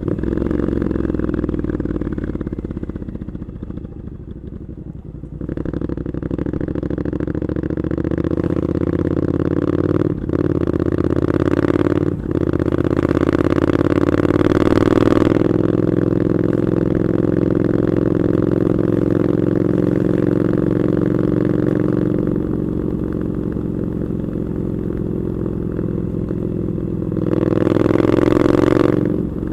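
Triumph Scrambler 900 parallel-twin running through an Arrow aftermarket exhaust under riding load. The note sags early and picks up again a few seconds in. Two brief breaks in the note come as gears change, then the pitch climbs steadily to a cruise. Near the end it swells with a burst of throttle and drops away.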